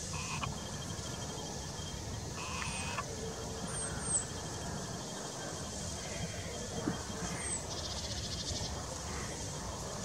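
Outdoor woodland ambience: a steady low background noise with faint, very short high chirps of small birds several times, a brief fast trill about eight seconds in, and a couple of faint single knocks.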